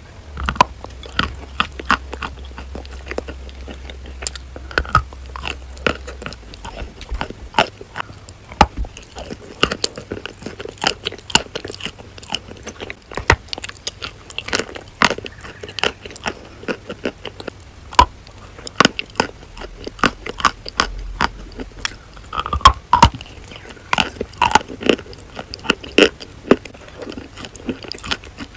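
Chalk with chalk paste being bitten and chewed: a long run of sharp, irregular crunches, several every couple of seconds, with softer creamy chewing between them.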